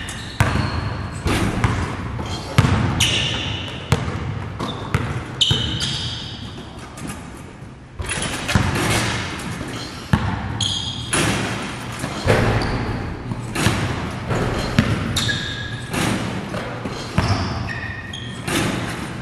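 Basketballs bouncing on a gym floor: repeated sharp thuds at an irregular pace, with short high squeaks in between.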